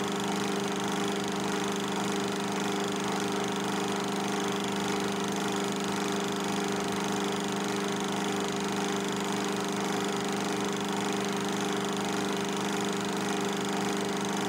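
Film projector running: a steady mechanical hum that does not change.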